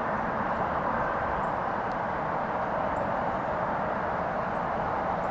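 Freight train cars rolling steadily past on curved track: a constant rushing noise of steel wheels on rail.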